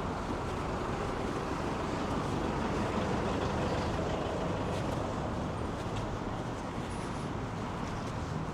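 Steady noise of road traffic and vehicles, swelling a little around the middle.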